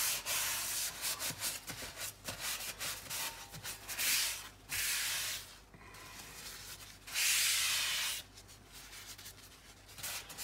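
Paper towel rubbed over the oiled surface of a cast iron Weber skillet, spreading oil to season it. Many short wiping strokes, with two longer, louder sweeps about four and seven seconds in.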